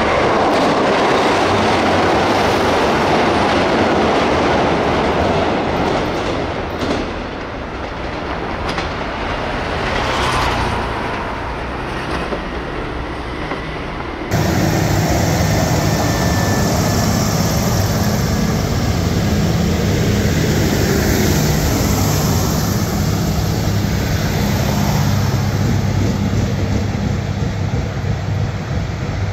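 Korean diesel railcar train running on the rails with a loud rushing noise. About halfway through the sound cuts abruptly to a steady low diesel engine drone.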